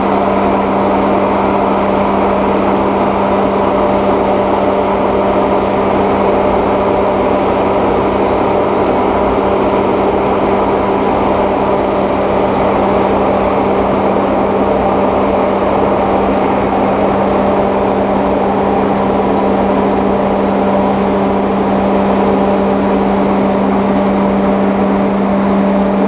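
Steady hum of a large ship's machinery, one constant low tone with fainter tones above it, under a loud, even rushing of wind and sea along the hull.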